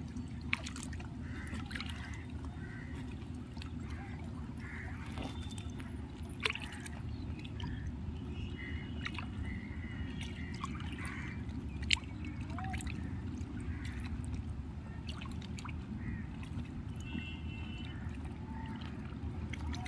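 River water lapping and trickling at the edge, over a steady low rush, with a few sharp clicks about half a second, six and a half, and twelve seconds in.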